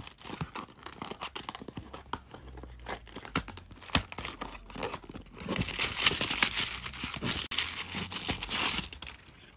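Cardboard and paper packaging of an advent calendar being opened by hand. Small clicks and scrapes come first. Then, from about five and a half seconds in, there are about three seconds of loud tearing and crinkling.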